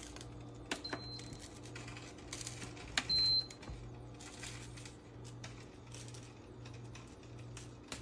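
Control-panel beeps of a COMFEE multi-cooker as its buttons are pressed: a faint short beep about a second in and a louder one about three seconds in, with soft button clicks. A steady low hum runs underneath.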